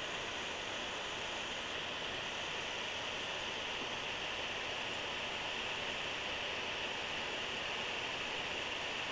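Steady, even hiss with no distinct sounds standing out.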